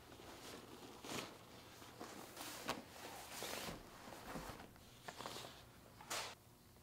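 A satin dust bag rustling as a folded leather piece is slid out of it and laid flat on a table. There is a string of soft swishes and rustles, with a few light knocks of the leather and its hardware against the surface.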